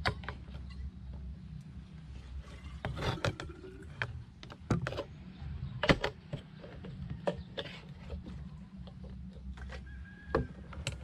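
Tongs clicking and knocking against a frying pan and a wooden bowl as food is served, in scattered sharp knocks with the loudest about six seconds in, over a steady low rumble.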